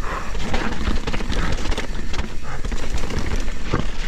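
Mountain bike running down a wet, muddy trail: tyre noise and a dense run of clicks and knocks from the bike rattling over bumps, over a steady low rumble.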